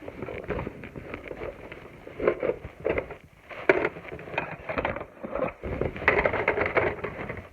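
Plastic toy blaster and darts being handled: irregular clicks, knocks and rattles, with louder clusters of clatter a few times.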